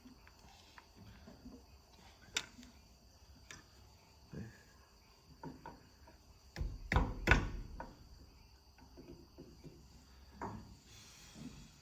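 Scattered clicks and knocks of hand tools and metal parts being handled while a hose clamp is refitted, with a short run of louder knocks about seven seconds in. A faint steady high-pitched trill runs underneath.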